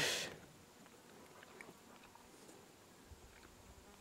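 Faint chewing of a mouthful of hot-smoked kahawai, with a few small mouth clicks, after a short breathy sound that trails off at the start.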